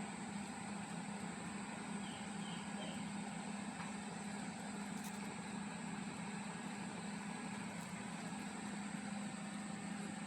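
A machine running steadily in the background: an even low hum with a faint high whine over it, unchanging throughout.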